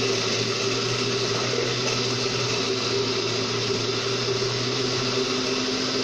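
Countertop blender motor running steadily, grinding raw cassava pieces into a liquid cake batter. The motor is labouring a little under the thick mix.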